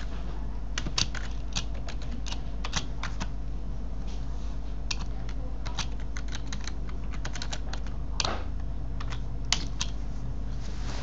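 Computer keyboard typing and mouse clicks: irregular single clicks and short runs of clicks, with a steady low electrical hum underneath.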